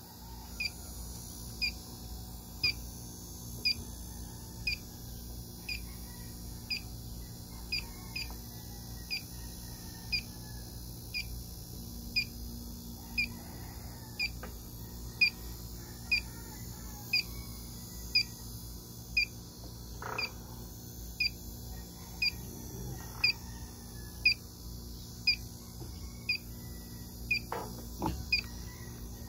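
Electronic refrigerant leak detector ticking out short high beeps at a steady rate of about one a second, with an occasional quick double. The slow, even rate is the detector's idle ticking, which shows no leak at the probe.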